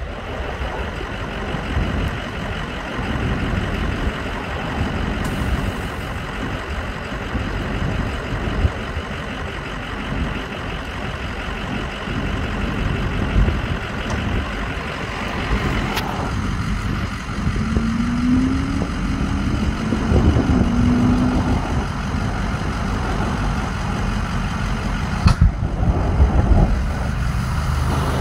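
Steady traffic noise from vehicles passing on the highway, swelling and fading as they go by. A few short knocks come near the end.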